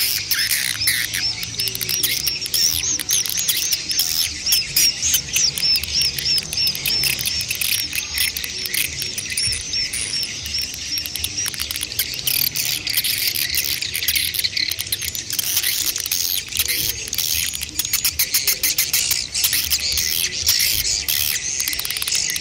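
Swiftlets calling: a dense, unbroken twitter of rapid high chirps and clicks, the adult-and-chick swiftlet calls.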